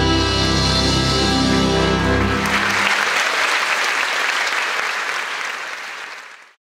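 Music holds a final chord that ends about two and a half seconds in, and audience applause follows, fading out quickly near the end.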